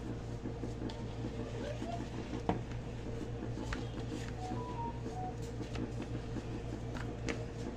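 Steady low electrical hum, with a few light taps and soft rustles as a hand presses fish fillets into seasoned flour in a bowl; the sharpest tap comes about two and a half seconds in.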